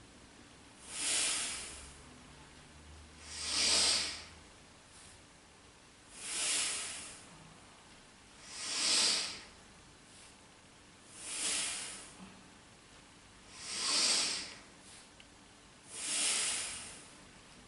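Deep, rhythmic breathing, seven strong breaths about one every two and a half seconds, the inhales and exhales of a lying-down yoga exercise that draws the knees into the chest on the inhale and stretches the legs out on the exhale.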